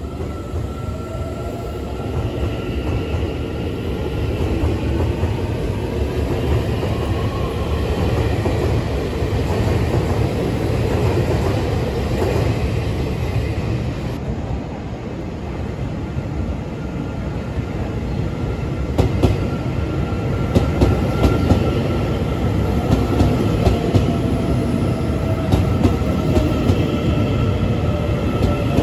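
Taiwan Railways EMU800 electric multiple unit pulling out of the station, its motor whine rising in pitch as it gathers speed. About halfway through, another EMU800 runs into the platform, its whine falling in pitch as it slows, with wheel clicks over the rail joints.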